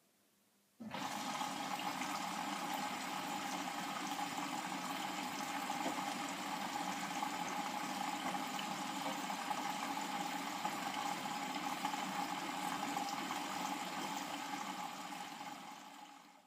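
Bosch Home Professional WAY32742 washing machine letting water in: the inlet valve opens suddenly about a second in and water rushes steadily into the drum, then tapers off and stops near the end.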